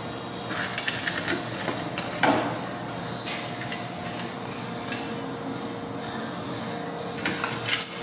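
Metal dryer parts and hand tools clinking and clattering as they are handled, in a run of short clinks in the first couple of seconds and again near the end, over a steady background hum.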